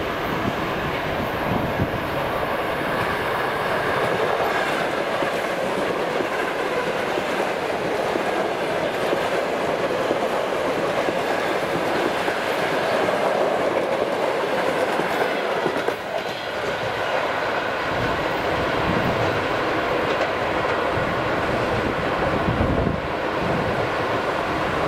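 ED4M electric multiple unit running past: a steady, loud rumble of wheels and running gear as the train goes by.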